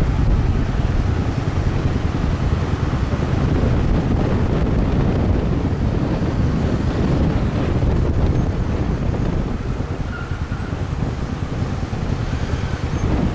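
Wind buffeting the microphone over steady street traffic noise, a low, even rumble with no single event standing out.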